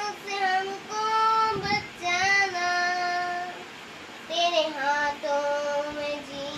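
A boy singing a Hindi devotional song to Jesus solo, with no accompaniment, in long held notes; he breaks off briefly about three and a half seconds in and picks up again a moment later.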